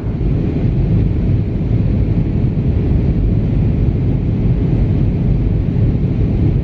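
Steady low rumbling roar of a moving vehicle, with no distinct tones or impacts.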